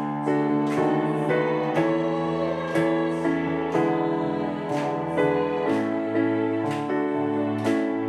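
Women's choir singing a hymn together with piano accompaniment, the piano's chords striking a steady beat about once a second.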